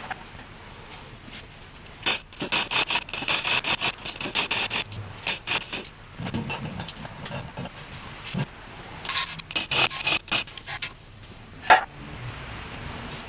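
Rapid rasping, ratchet-like strokes in two runs of a couple of seconds each, with a single sharp knock near the end.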